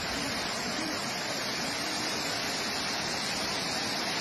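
Muddy floodwater blasting out of a dam's discharge outlet: a steady rush of falling water and spray.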